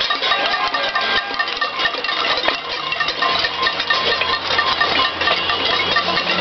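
A crowd banging pots and pans, a dense, continuous metallic clanging. From about halfway through, a bus engine hums underneath as the bus passes.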